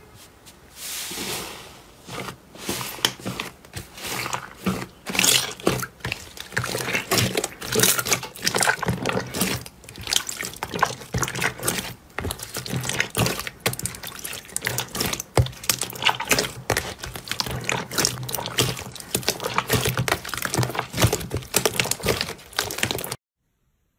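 Slime being squished and worked by hand, a dense, irregular run of wet clicks and pops that stops suddenly near the end.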